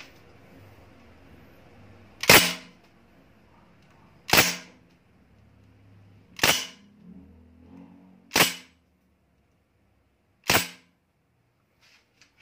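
Crosman Bushmaster MPW CO2 BB rifle firing five single shots on semi-auto, evenly spaced about two seconds apart.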